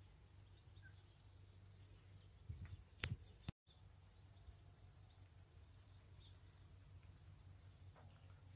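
Near silence: faint outdoor ambience with a steady high hiss and faint short chirps about once a second. There is one soft click about three seconds in.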